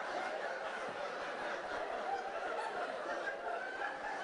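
An audience laughing steadily, with a man chuckling into a microphone over it.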